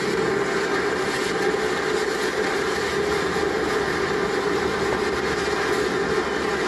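Massed ground rockets (coets) of a cordà firing together in one continuous, steady rushing hiss with faint crackle, heard through a television speaker.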